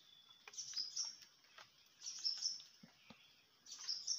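Small birds chirping in three short bursts of high, quick notes, about one and a half seconds apart.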